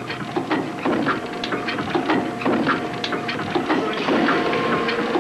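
Product-testing machine repeatedly slamming and jerking a product, making a rapid, uneven mechanical clatter of knocks, a few a second.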